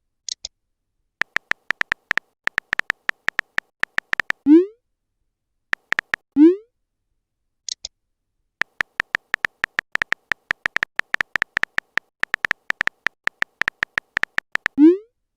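Text-messaging sound effects: runs of rapid keyboard typing clicks, broken by a short rising pop three times as a message appears, and two brief high chirps.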